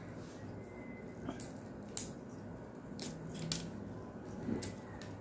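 Cooked lobster shell being cracked and pulled apart by hand to get at the flesh: a handful of sharp cracks and snaps, the loudest about two seconds in.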